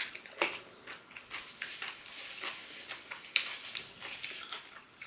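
Close-miked chewing of a mouthful of coleslaw: wet mouth clicks and smacks coming irregularly, with a sharper click about three and a half seconds in.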